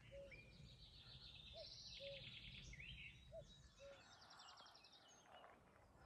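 A common cuckoo calling faintly in the distance: three two-note 'cuck-oo' calls, the first note of each slightly higher. Small songbirds chirp and trill faintly over it.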